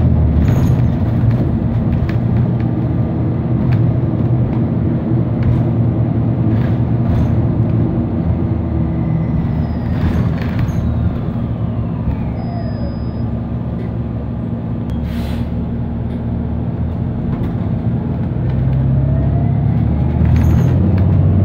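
Inside a New Flyer Xcelsior XDE60 diesel-electric hybrid articulated bus: a steady low engine drone under the hybrid drive's electric whine, which falls in pitch as the bus slows down. A short air hiss comes partway through, then the whine rises again and the drone grows louder near the end as the bus pulls away.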